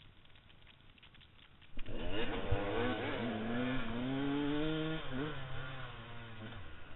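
Dirt bike engine revved hard as the bike launches from the start line, coming in suddenly about two seconds in. Its pitch climbs and drops sharply twice as the rider shifts up through the gears.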